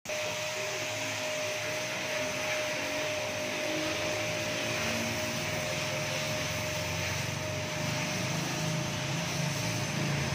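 A small electric motor running steadily, a constant whine over a hiss with a low hum underneath.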